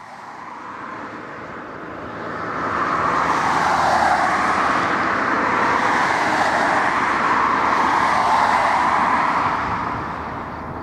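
Lisunov Li-2's two nine-cylinder Shvetsov ASh-62 radial engines and propellers running. The sound swells about two seconds in to a loud, steady run with a slowly wavering whoosh, then eases back a little near the end.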